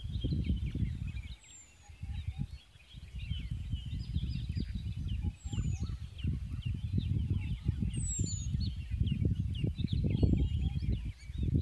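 Wind buffeting the microphone in gusts, easing off briefly between about one and three seconds in. Over it, a crowd of small birds chirping in quick short notes, with a few high, thin down-slurred whistles now and then.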